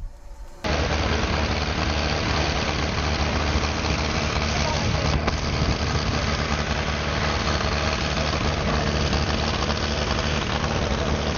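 A heavy machine's engine running steadily; it starts abruptly about half a second in.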